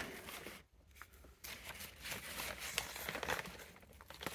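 Close rustling and crinkling with scattered small clicks and scrapes from something being handled.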